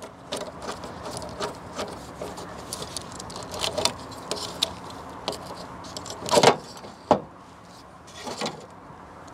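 Hand ratchet with a 7 mm socket clicking in short runs as the centre bolts holding the wiring connectors to a PCM are backed out. Near the end come a few louder knocks and scrapes as the plastic harness connectors are pulled off the module.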